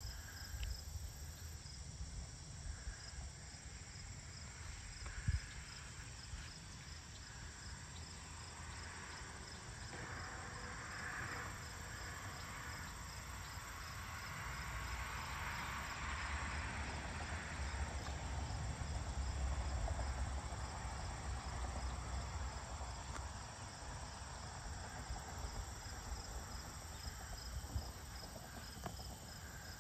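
Evening insect chorus of crickets: a steady high trill with a regular pulsing chirp over it. A low rumble swells and fades through the middle, and there is a single sharp knock about five seconds in.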